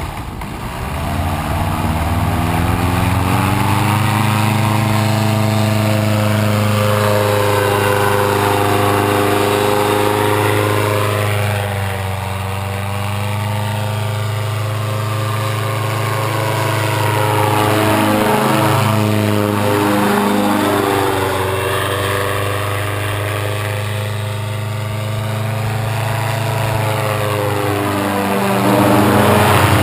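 Paramotor engine and propeller running at a steady throttle in flight, a constant drone that swells and sweeps in tone as the machine passes the ground, loudest near the end as it flies close by.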